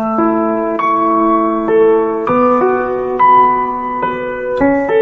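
Intro music played on a piano-like keyboard: slow, sustained chords that change about once a second.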